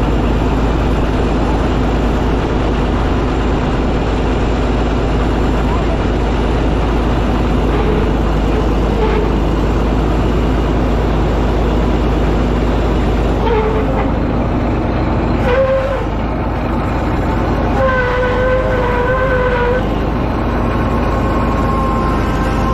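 An old Caterpillar D8 bulldozer running loud and steady. Near the end, a wavering held tone sounds over it for about two seconds.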